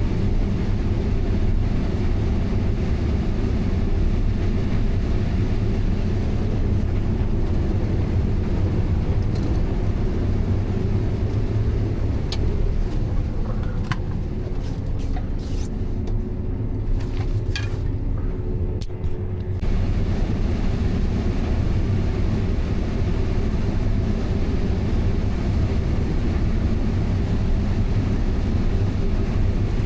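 Heavy farm machinery engine running steadily with a deep rumble. For several seconds past the middle the noise thins, with a faint hum and a few sharp clicks, before the full running sound comes back abruptly.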